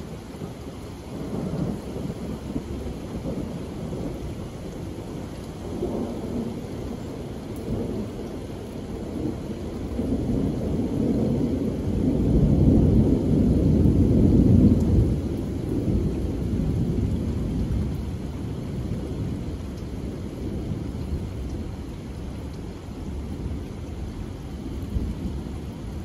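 Heavy rain falling on a wooden deck and lawn, with a low, gusty rumble that swells to its loudest about halfway through, then eases.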